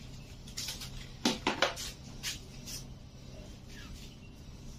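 A few short knocks and clatters of objects being handled, loudest in a quick cluster about a second and a half in, over a faint steady low hum.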